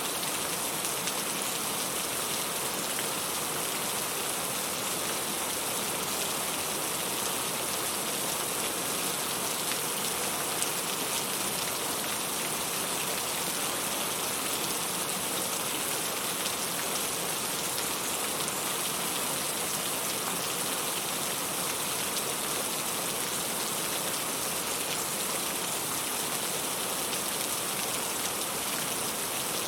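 Steady, even rain falling, a continuous hiss of many drops without a break.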